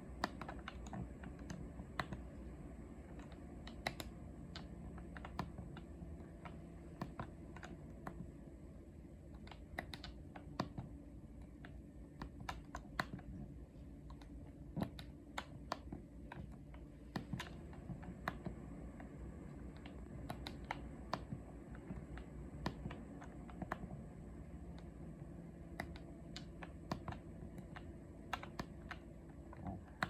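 Buttons on a Yanmar air conditioner's wired remote controller being pressed again and again, giving irregular sharp clicks over a steady low hum.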